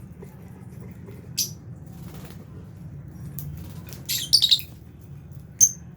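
Lovebirds giving short, sharp, high-pitched chirps: one about a second and a half in, a louder burst of several around four seconds in, and one more near the end, over a steady low hum.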